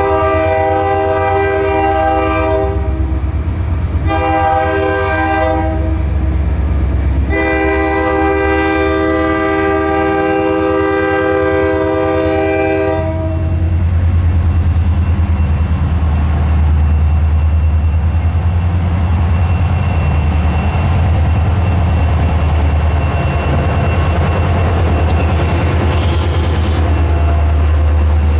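Diesel freight locomotive's air horn sounding several blasts, the last one long, as it approaches a grade crossing. After the horn, the heavy low rumble of the diesel locomotives' engines builds as the lead units roll past close by.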